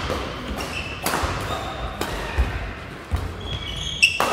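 Badminton rally: racket strings strike the shuttlecock with sharp cracks about once a second, the hardest just after four seconds, over players' thudding footsteps. Short high squeaks near the end, typical of court shoes on a wooden hall floor.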